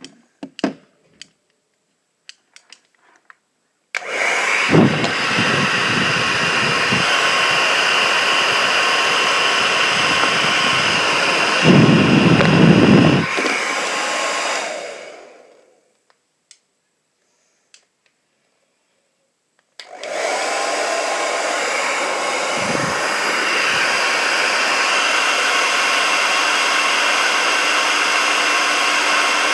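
Handheld hair dryer switched on about four seconds in, running with a steady blowing whine, then switched off and winding down. After a few seconds of silence it is switched on again. There are a few low rumbles of air hitting something while it blows; a few small handling clicks come before it starts.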